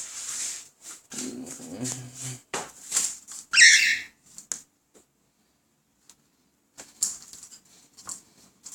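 Cockatiel giving one short, loud, harsh call about three and a half seconds in, among scattered light clicks and taps.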